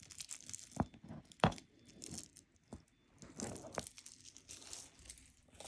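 Bead and shell-chip necklaces being handled, with a handful of sharp clicks as beads knock together and light rustling between.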